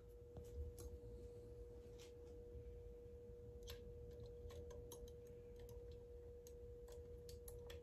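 Near silence: a faint steady hum on one pitch, with a few faint scattered clicks.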